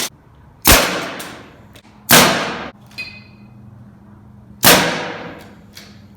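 Nails being driven into wooden floor joists: three sharp, loud strikes spaced about one and a half to two and a half seconds apart, each with a short ringing tail.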